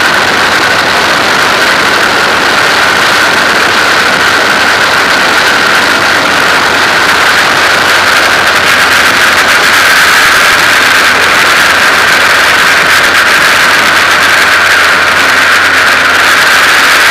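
Formula 2000 race car engine running steadily, loud and close, with a constant high tone over a dense noise and no revving up or down.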